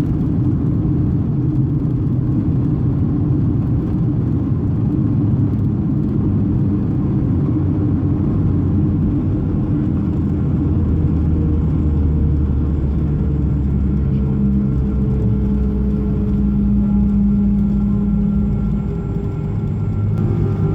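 Boeing 737 heard from the passenger cabin: a steady low rumble of jet engines and airflow, with engine tones that shift in pitch and ease off slightly near the end.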